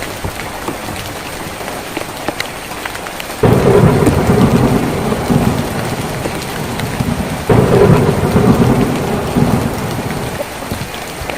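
Heavy rain drumming on a tin roof, with two sudden rolls of thunder: one about a third of the way in and another just past the middle, each dying away over a few seconds.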